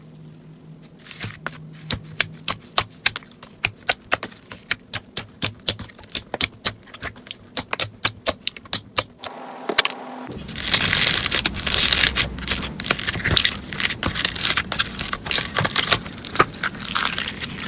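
Slime being handled, with sharp sticky clicks and pops at about four or five a second. After a cut about ten seconds in, another slime gives a dense, continuous crackling.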